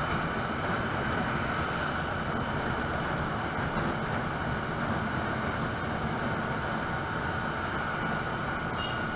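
Steady riding noise of a motorized two-wheeler on the move: its engine running and air rushing past, with a faint steady whine over it.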